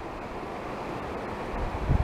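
Wind on the camera microphone: a steady rush with low buffeting that swells near the end.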